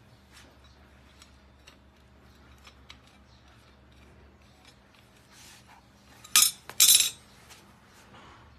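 Chrome steel tube frame parts clicking faintly as they are handled and fitted together, then two loud metallic clanks about half a second apart, a little over six seconds in, as the frame is set down on the concrete floor.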